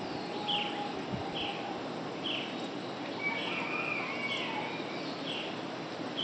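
Dawn chorus of tropical forest birds, one bird repeating a short high call about once a second, with another bird's longer call in the middle.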